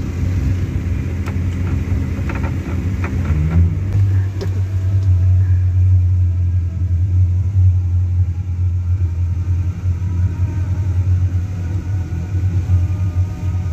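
Yamaha 242 jet boat's engines running underway as a steady low rumble, which grows stronger about four seconds in.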